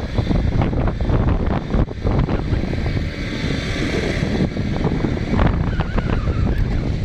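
Heavy wind buffeting the microphone of a moving motorcycle, with the bike's engine running underneath.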